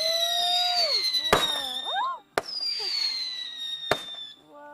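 Consumer fireworks going off: long whistles that slowly fall in pitch, with sharp bangs about a second and a half in, about halfway and near the end.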